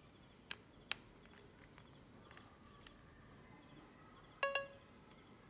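Two light plastic clicks from handling the Dyson Corrale straightener's lock tab, then near the end a brief ringing electronic chime of a few quick notes from the straightener as its display lights up.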